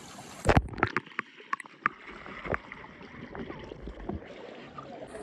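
Phone microphone dipped under shallow stream water: a sudden knock and splash about half a second in, then muffled underwater sound with scattered sharp clicks and knocks.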